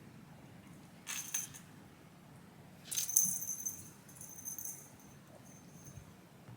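Small metal bell jingling in two bouts: a short shake about a second in, then a louder, longer jingle about three seconds in whose ring fades out over the next second or two.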